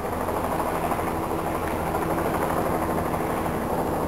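News helicopter hovering overhead: a steady drone of rotor and turbine engine.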